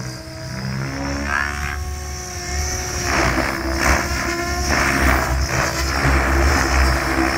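Tron 7.0 radio-controlled 3D helicopter flying aerobatics, its rotor whine gliding up and down in pitch as it swoops past. From about three seconds in, a louder pulsing chop of the rotor blades comes in.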